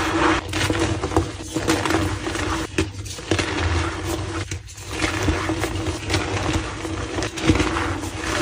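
Reformed white gym chalk blocks being crushed by hand: a dense, dusty crunching and crumbling with many small irregular crackles, pausing briefly about halfway through.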